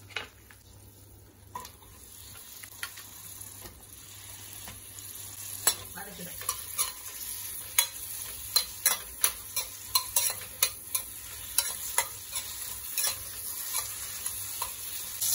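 Eggplant pieces sautéing in hot oil in a metal kadai, the sizzle growing louder, while a steel ladle stirs them, clinking and scraping against the pan many times from about six seconds in.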